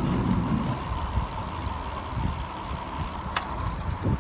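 Wind buffeting the microphone and tyre rumble from a bicycle moving along a paved path, with a sharp click about three seconds in and a brief thump near the end.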